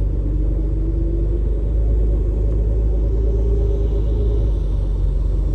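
Cabin noise of a 1970s Toyota Crown 'Kujira' under way: steady low engine and road rumble, with a faint whine that rises in pitch twice as the car picks up speed.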